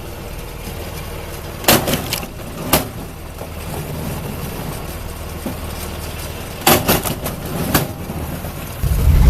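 A wood-processing machine's engine running steadily, with sharp cracks and knocks of wood breaking, in clusters about two seconds in and again about seven seconds in. A deeper, louder engine rumble comes in near the end.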